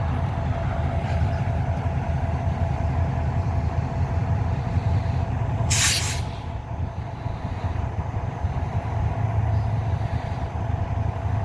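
EMD MP15 diesel switcher locomotive idling steadily with a low rumble, and a short, sharp blast of air hissing out about six seconds in, typical of an air brake release.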